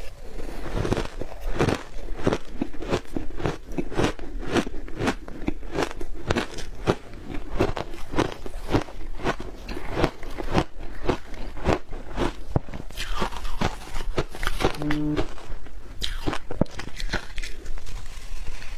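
Shaved ice coated in matcha milk powder being bitten and chewed close to the microphone: a steady run of crisp crunches, about two or three a second.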